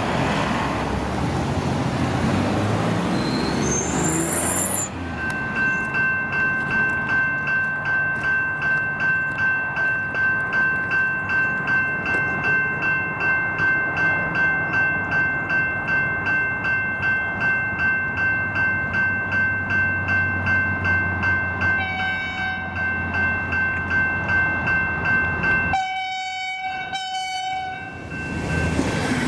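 A passing vehicle and road noise, then level-crossing warning bells start suddenly and ring steadily at about two strokes a second. Near the end a V/Line VLocity train's horn sounds, briefly and faintly at first and then in two loud blasts as the train approaches the crossing.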